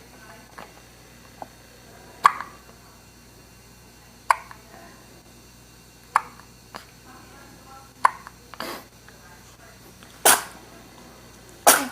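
Hiccups: a short, sharp hic about every two seconds, four in a row, followed near the end by two louder, breathier puffs.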